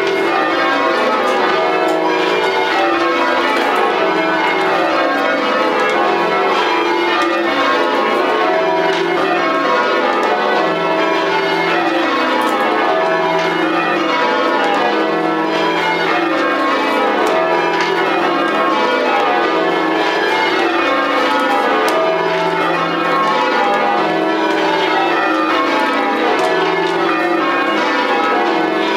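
A ring of ten church bells rung full circle in rounds, English change-ringing style: the bells strike one after another down the scale from treble to tenor, the descending run repeating steadily without a break, heard from the ringing chamber below the bells.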